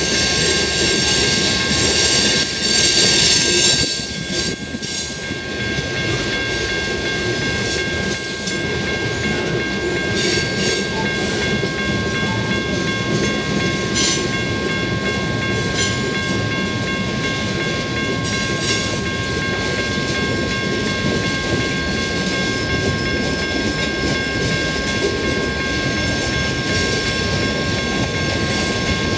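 Freight cars rolling past on the rails: a steady rumble and clatter of wheels, with a steady high whine and a few sharp clanks. It is loudest in the first few seconds.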